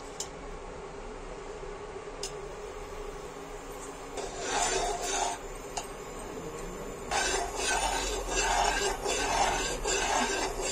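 Steel spoon scraping and rubbing across the bottom of a metal kadhai as it spreads oil, in two spells of quick back-and-forth strokes, the second longer.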